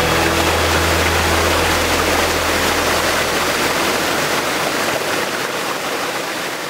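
Waterfall pouring over rocks into a pool: a steady rush of water. A low held tone dies away in the first few seconds, and the whole sound slowly fades down toward the end.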